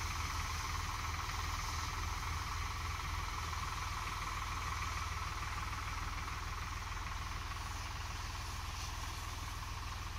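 Swaraj 735FE tractor's diesel engine running steadily, a low even throb, with a steady high hiss over it.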